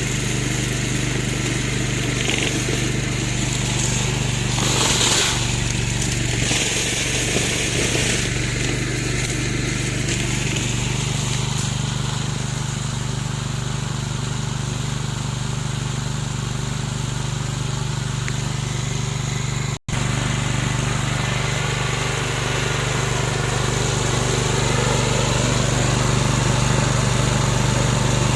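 Homemade remote-controlled lawn mower running steadily, with a strong even engine hum. The sound drops out for an instant about twenty seconds in.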